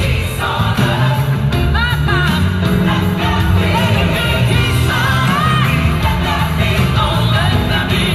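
A song playing, a singing voice with wavering, gliding notes over steady, strong bass.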